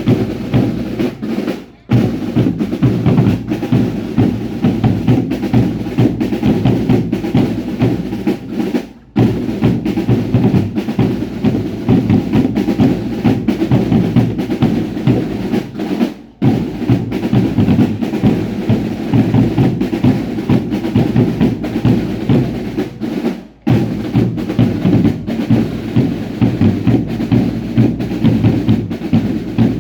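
Drums playing a fast, dense, even beat for a baile indio dance. The drumming breaks off for a moment about every seven seconds and starts again at once.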